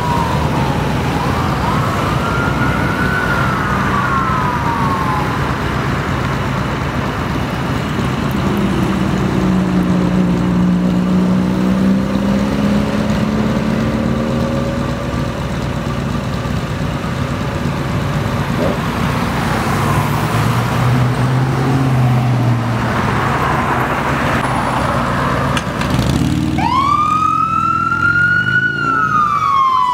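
Ambulance siren wailing as the ambulance responds with lights and siren: faint under the sound of traffic engines at first, then loud in the last few seconds as it draws close, the pitch sweeping up and falling away.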